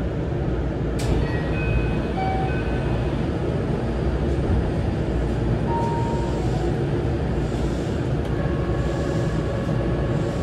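Steady hum and hiss heard from inside an electric commuter train standing at a station platform. There is a sharp click about a second in and a few brief high tones.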